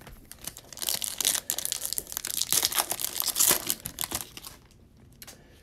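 Foil wrapper of a Donruss Optic football card pack being torn open and crinkled by hand: a dense run of crackling from about a second in until about four seconds in.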